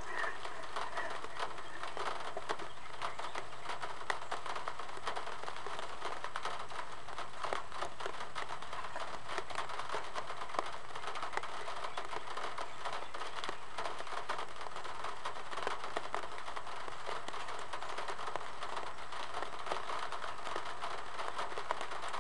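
Light rain pattering on a car hood right by the microphone: a steady hiss with many small ticks of drops.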